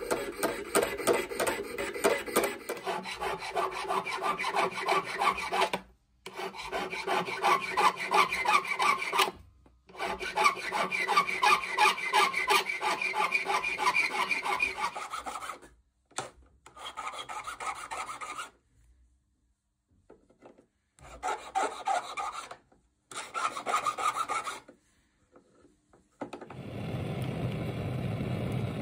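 A jeweller's piercing saw and then a hand file work the metal handle of a fork: quick, even rasping strokes in several takes, broken by short silences. Near the end, a gas torch flame takes over with a steady low rushing roar as the piece is heated on a soldering block.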